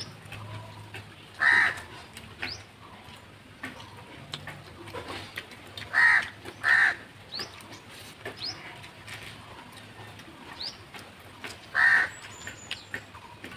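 A crow cawing four times: once about a second and a half in, twice in quick succession around the middle, and once near the end.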